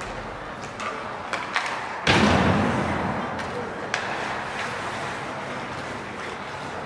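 Hockey game play: a few sharp stick clicks, then one loud heavy thud about two seconds in that rings on and dies away over about a second, with voices murmuring in the background.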